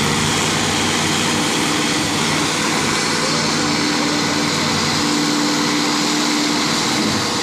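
Vehicle engine running steadily while driving, mixed with continuous road and wind noise.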